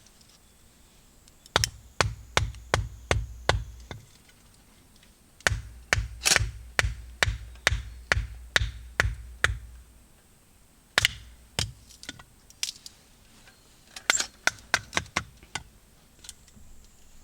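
Repeated sharp knocks of steel on wood, about three a second in runs with pauses between: firewood being split into kindling.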